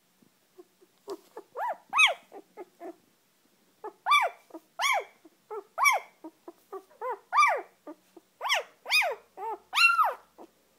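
A newborn Shetland Sheepdog puppy crying in a run of short, high squeals, each rising and then falling in pitch. After a short break the squeals come about twice a second until near the end.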